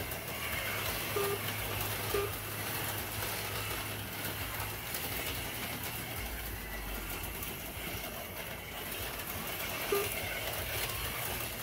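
HO-scale slot cars running laps on the track, their small electric motors whirring steadily over a low hum, with a few short beeps.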